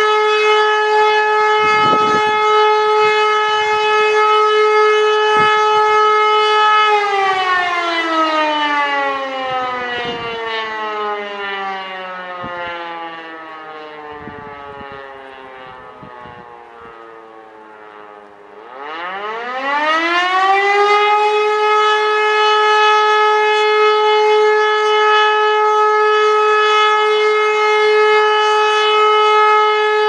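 E57 electromechanical civil-defence siren sounding the German fire-alarm signal. Its steady wail holds for about seven seconds, then winds down slowly in pitch as the motor is switched off. About nineteen seconds in it spins back up to full pitch and holds steady again, starting to fall once more at the very end. The drop is one of the two interruptions in the signal's one-minute tone.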